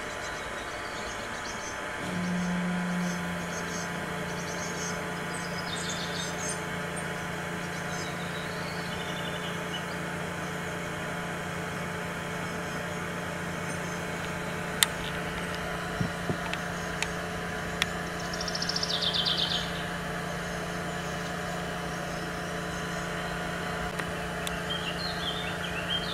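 A steady low machine hum, like an idling engine, starts about two seconds in and holds on. Scattered high bird chirps sound over it, with a short rapid trill a little after the middle and a few sharp clicks.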